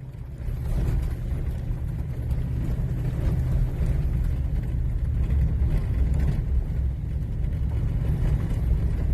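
Van on the road: a steady low rumble of engine and road noise.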